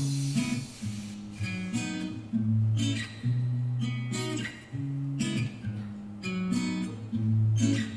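A K-pop song begins playing abruptly, with strummed guitar over a stepping bass line.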